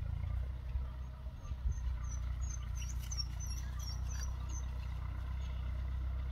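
A stopped van's engine idling with a steady low rumble. Over it, a run of quick high chirps comes from about two seconds in to about five seconds in.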